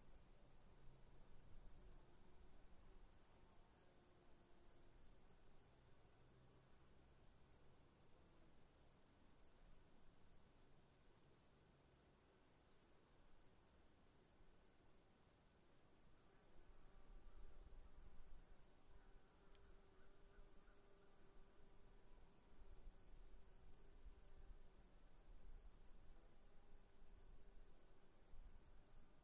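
Near silence, with a faint high-pitched insect chirp repeating evenly a few times a second over a steady high-pitched whine.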